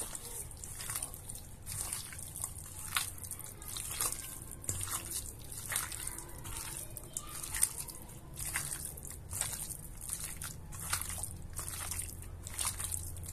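Hands squeezing and tossing raw chicken strips in a wet lemon-juice and spice marinade in a stainless steel bowl: irregular wet squelches and squishes.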